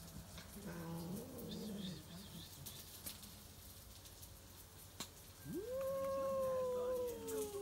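Stray tabby cats in a territorial standoff. A low, wavering growl comes about a second in. About two-thirds of the way through, a long drawn-out yowl begins; it holds its pitch and then slowly sinks.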